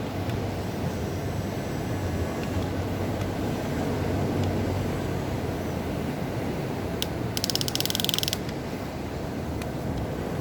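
Huina radio-controlled excavator's electric motors and gearboxes running steadily as it works, with a burst of rapid clicking lasting about a second near seven seconds in.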